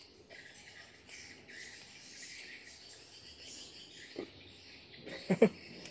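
Steady chirring of insects in the garden, with some bird chirps. About four seconds in comes one short close-up mouth sound from the eater, and just after five seconds two louder ones in quick succession.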